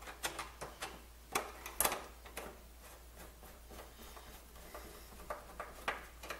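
Light clicks and taps of a screwdriver working a screw into the plastic case of a Coleco Adam computer, a few sharp ones in the first two and a half seconds, the loudest about two seconds in, then fainter ticking.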